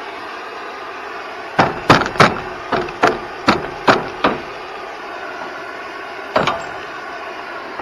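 Hammer blows on steel: about eight sharp strikes in quick succession, then a single strike a couple of seconds later, over a steady background noise.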